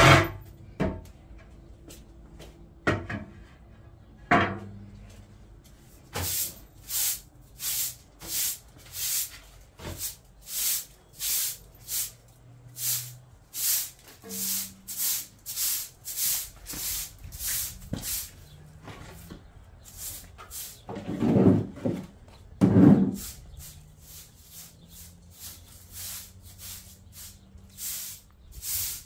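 Rhythmic scraping strokes, about two a second, with a pause of a few seconds around the middle. A few heavy knocks, the loudest two falling in that pause.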